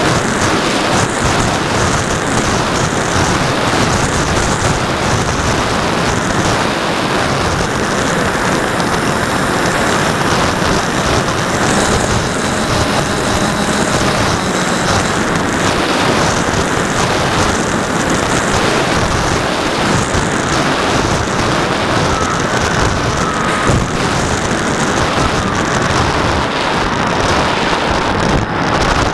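Steady rush of wind over a camera mounted on a radio-controlled Twin Otter model in flight, with its two propellers running underneath.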